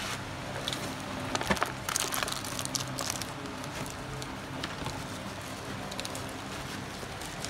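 Cardboard box and plastic bag packaging being handled: rustling and crinkling with sharp crackles, busiest between about one and three seconds in, over a steady low hum.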